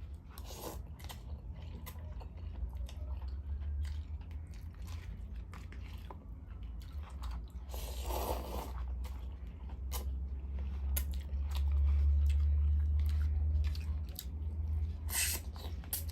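Close-miked eating: chewing with repeated mouth clicks and smacks, and a few louder bites, over a steady low hum.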